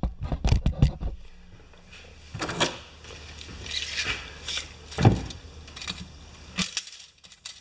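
A steel tape measure being pulled out and handled against a wheelbarrow wheel's axle shaft on a workbench: a quick run of clicks and rattles in the first second, then scattered light knocks and scrapes.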